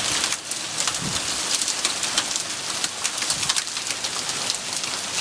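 Heavy rain and hail pelting the ground and nearby surfaces: a dense, steady hiss of rain with many sharp ticks of separate impacts.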